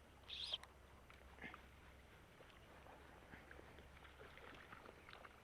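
Near silence: faint outdoor background, with one short high-pitched sound about half a second in and faint scattered ticks afterwards.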